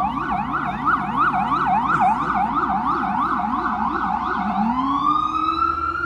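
FDNY EMS ambulance siren on the yelp setting, sweeping up and down fast, about three times a second, then switching a little past four seconds in to a slow rising wail.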